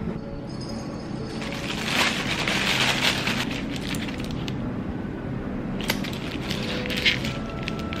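Aluminium foil crinkling and crackling as it is peeled back from a foil-wrapped grilled wrap, in two spells, the first longer.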